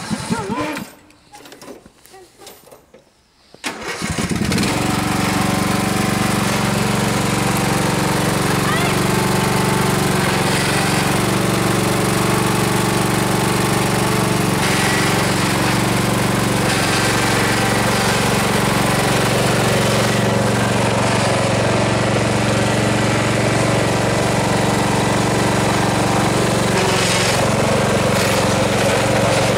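Riding lawn mower engine catching about four seconds in, then running steadily.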